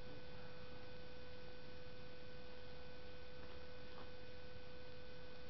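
A steady hum over a quiet background hiss, with two faint ticks about three and a half and four seconds in.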